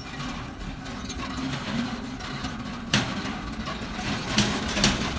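Barbed wire roll on a pole giving a few sharp metallic clicks and rattles as the strand is drawn off it, the loudest about three seconds in, over a steady low hum.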